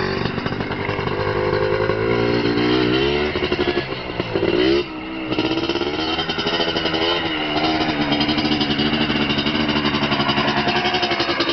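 Yamaha sport quad's engine revving hard under acceleration, its pitch climbing in the first few seconds. The throttle is cut briefly about five seconds in, then the engine is held at high revs.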